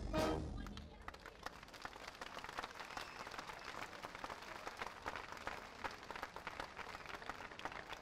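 A crowd applauding, many hands clapping in a steady patter, just after a brass band's held final chord dies away in the first half second.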